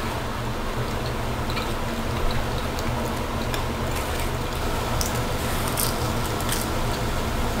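Bite taken from a slice of vegetable pizza with a crisp crust and chewed, giving a few short crackles about five to six and a half seconds in. A steady hum and hiss runs underneath.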